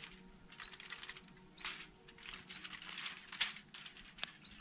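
Aluminium foil crinkling and rustling in irregular bursts as hands lay a seasoned fish on it and handle it, with one sharp click about four seconds in. A faint high chirp repeats about once a second behind it.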